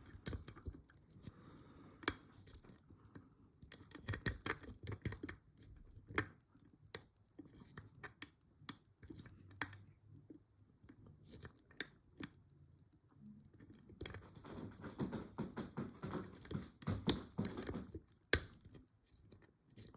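Lock pick and tension tool clicking and scraping irregularly inside a rusty pin-tumbler padlock's keyway, the pick working the last pin with the lock in a false set. The clicks come thickest a few seconds in and again near the end.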